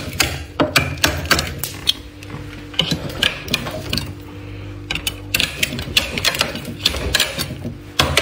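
A scraper scraping and chipping thick frost off the inside walls of a freezer: rapid, irregular crunching scrapes and clicks, easing off for a moment a few seconds in before picking up again.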